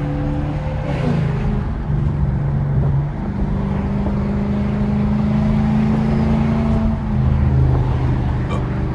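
Lexus GS430's 4.3-litre V8 running with its catalytic converters removed, driving under way. The engine note steps up in pitch about three seconds in and drops back near the end.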